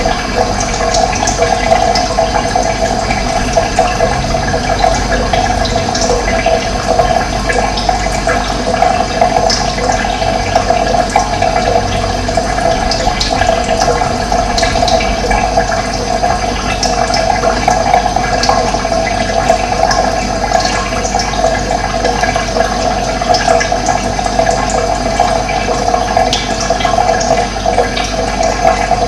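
Steady rush of running water, unbroken throughout, with short high bird chirps heard faintly now and then over it.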